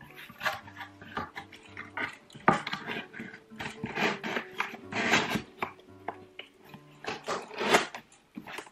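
Cardboard shipping box being handled: the flaps are folded shut and the box is moved across the desk, giving a series of short scrapes and rustles. Background music plays underneath.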